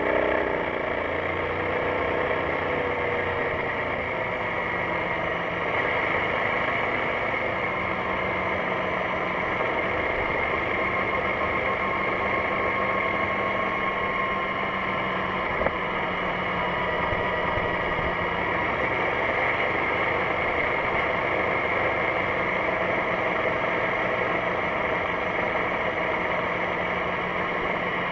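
BMW C650GT maxi-scooter's parallel-twin engine running steadily under wind and road noise. Its note falls in the first second, and there is one short knock about halfway through.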